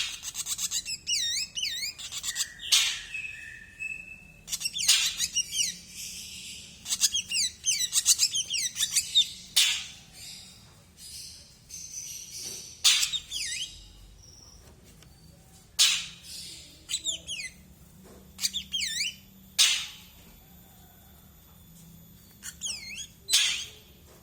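Male ashy drongo singing: runs of quick, looping whistled notes, several in a row, broken by short sharp harsh calls. The phrases come thick in the first half and more spaced out, with pauses, later on.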